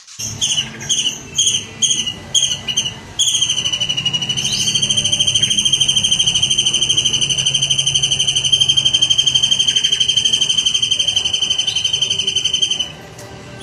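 Songbird singing: a run of short whistled notes, then one long, rapid, steady trill of about ten seconds that stops abruptly near the end.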